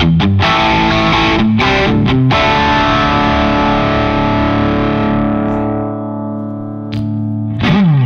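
Strat-style electric guitar played through an Officina Elettrica StompAmp Brown solid-state pedal amplifier, set to a heavy distorted tone with the mids boosted to make it darker. A few quick picked notes, then a chord left ringing and slowly fading, with new notes struck near the end.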